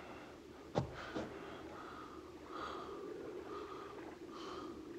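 A man's heavy breathing, in faint puffs about every half second. A single sharp click comes about a second in.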